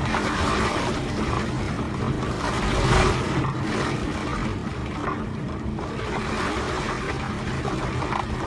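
Loud, continuous rush of typhoon wind and water with a heavy low rumble underneath, swelling briefly about three seconds in.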